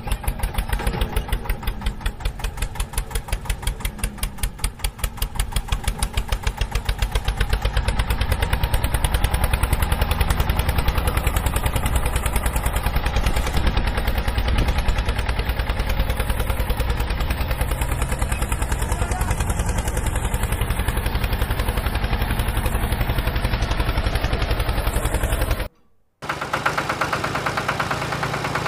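Tractor diesel engine running with a steady, rapid chugging beat that grows fuller about eight seconds in. It cuts out abruptly for a split second near the end, then the engine sound resumes.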